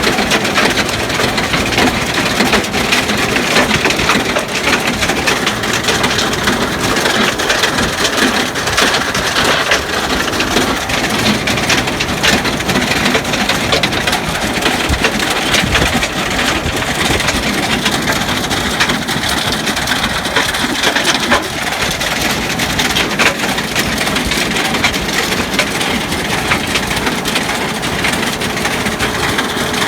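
Yüksel Tarım tractor-drawn stone picker gathering stones: a dense, continuous clatter and crunch of rocks knocking together. A tractor engine runs underneath.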